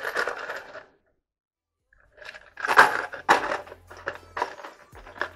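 Small metal screws and washers rattling and clinking inside a clear plastic container as it is handled and shaken, in irregular bursts with a break of about a second partway through.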